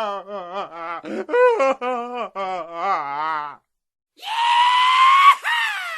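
Cartoon sound effects: a character's wobbly, rapid snickering laugh, then after a short pause a loud, high-pitched scream-like cry that rises slightly, breaks with a click and slides down in pitch as it fades.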